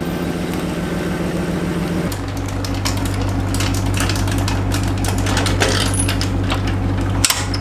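An engine running steadily, its pitch stepping up about two seconds in, with scattered knocks and clinks over it.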